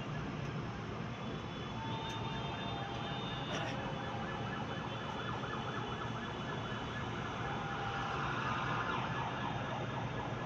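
Busy commuter-rail station platform ambience: a steady mix of crowd chatter and train noise, with short high-pitched tones coming and going.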